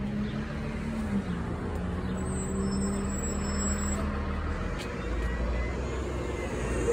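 Street traffic: a motor vehicle's engine humming steadily over road noise.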